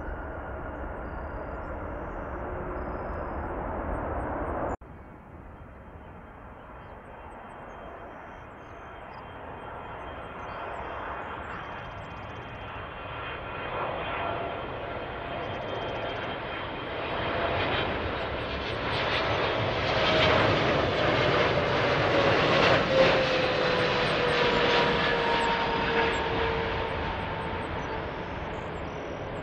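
Jet engine noise from another aircraft cuts off abruptly about five seconds in. Then the engines of an AeroLogic Boeing 777 freighter on final approach grow louder, with a whine that falls in pitch as it passes, and ease off as it comes down to touch down.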